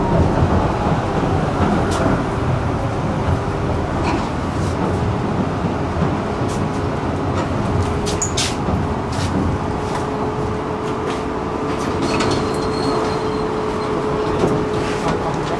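A tram running along its tracks, heard from inside the passenger cabin: a steady rumble of wheels on rail with a whine that falls in pitch over the first few seconds, a steady hum in the second half, and scattered sharp clicks.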